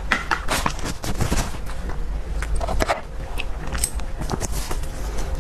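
Close-miked eating: a person biting and chewing food, with a rapid run of crackling, crunching clicks over a steady low rumble.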